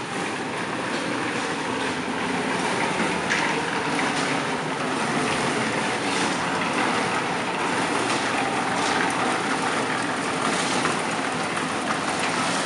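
Concrete mixers running: a steady mechanical din with irregular clattering as the mix tumbles in the drums.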